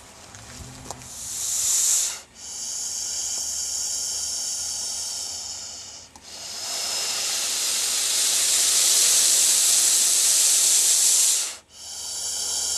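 Pacific gopher snake hissing defensively: the agitated snake gives a series of loud, high-pitched hisses. The first is short, the next two last several seconds each (the longest about five), each broken off by a brief pause, and a fourth begins near the end.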